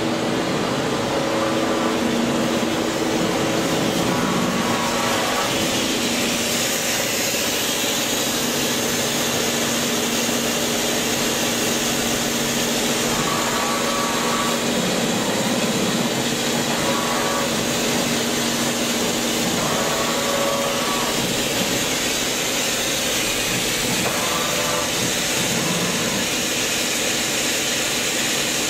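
OKK HM80S horizontal machining center running under power: a steady mechanical hum and hiss, with a brief higher whine recurring every few seconds.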